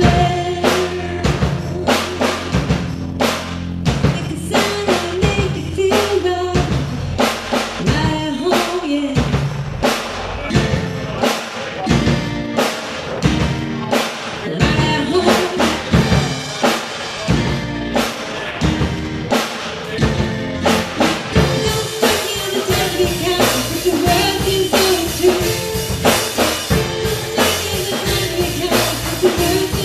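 A band playing music with a prominent drum kit, regular snare and bass drum hits.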